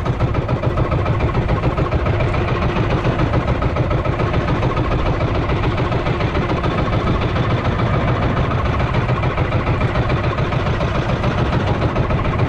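Small engine of an outrigger fishing boat running steadily at trolling speed, with an even, rapid throb.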